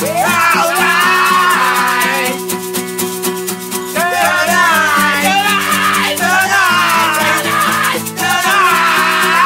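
Background song: a singer's voice over held chords, with a shaker keeping a steady, even beat.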